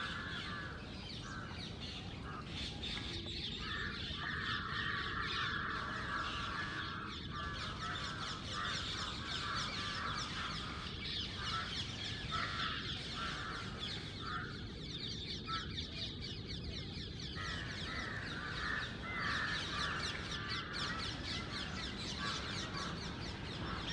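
A dense, continuous chorus of crows cawing and rose-ringed parakeets screeching together at a roost tree, many birds calling over one another without a break.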